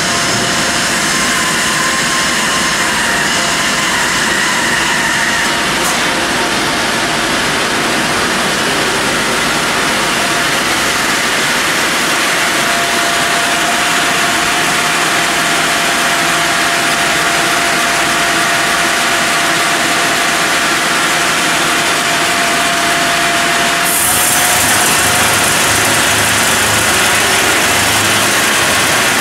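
Horizontal bandsaw running and sawing through a log: a loud, steady mechanical noise with a whine that holds through the middle stretch, then the sound turns brighter with a low hum near the end.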